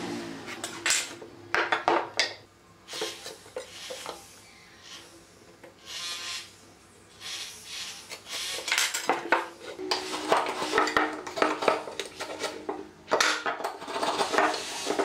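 Metal try square and steel rule clinking and scraping against pine boards, with pencil strokes, while cutting lines are marked out: irregular light clicks and scrapes with short quiet gaps.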